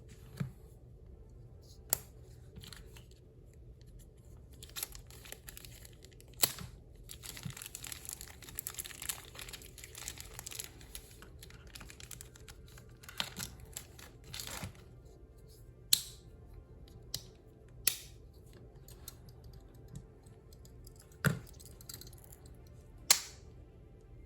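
Scattered sharp metallic clicks and taps, with some light scraping in the middle, from small parts of Victorinox Swiss Army pocket knives being handled and worked on. Faint background music plays underneath.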